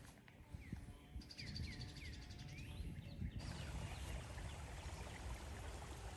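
Wild birds calling faintly: a run of quick, downward-sweeping chirps over a steady high trill. About three seconds in it cuts to low rumbling outdoor noise with a few scattered chirps.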